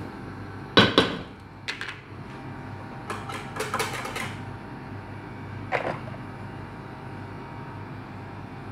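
A few sharp knocks and clatters of kitchenware around a metal cooking pot, loudest about a second in, with a small cluster a few seconds later, over a steady low hum.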